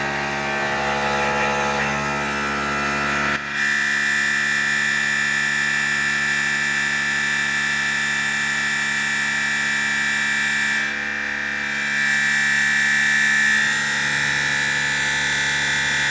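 Tormach CNC mill spindle driving a Shear Hog cutter through aluminum in an aggressive first cut, with a steady high-pitched ring of chatter. The ring comes in suddenly a few seconds in, drops away briefly near the end and returns. The chatter comes from the heavy cut and a part that isn't clamped down well enough.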